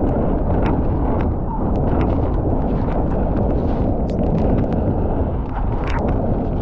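Mountain bike riding down a wet trail: a loud, steady rush of wind and tyre noise on the camera microphone, with frequent sharp clicks and rattles from the bike and the trail surface.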